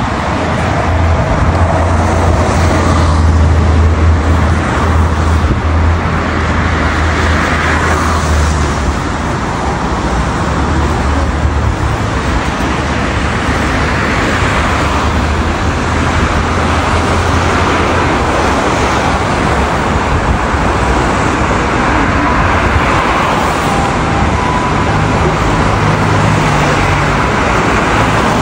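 Steady city road traffic: cars and a bus passing on a multi-lane street, with a low engine rumble, loudest for the first several seconds as the bus goes by.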